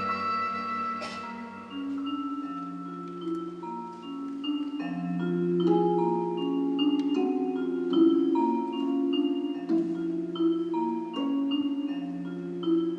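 Slow instrumental music: overlapping held notes, a low note line under a higher melody that moves every second or so.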